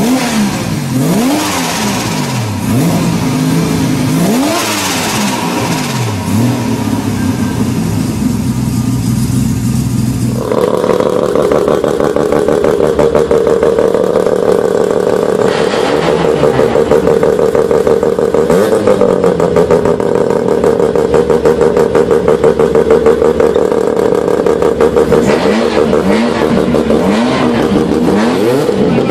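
Mazda RX-7 rotary engine revved in repeated free-revving blips, rising and falling. About ten seconds in it gives way to a 20B three-rotor turbo rotary with anti-lag, running at a steady high idle with a rapid choppy stutter, then revved up again near the end.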